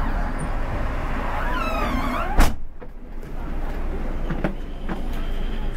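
Scania K360 bus running slowly, its engine a steady low rumble in the cab, with one sharp knock about two and a half seconds in, after which the background hiss drops for a moment.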